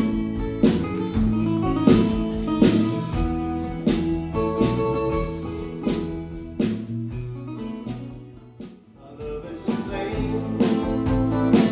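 Live band playing an instrumental passage led by guitar, with a steady drum beat. The music thins out and drops briefly about eight seconds in, then starts up again.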